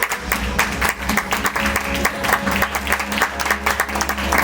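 Audience applauding with steady rapid clapping over recorded background music.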